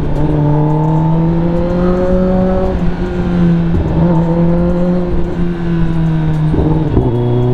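Kawasaki ZX-10R's inline-four engine on the move through an SC-Project long-can exhaust, a steady note that rises gently, holds, then dips briefly about six and a half seconds in and settles lower.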